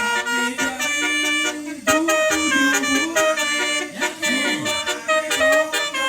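Basuri multi-tone musical horn playing a tune: reedy held notes that step from pitch to pitch, several sounding together, with a few short sharp accents.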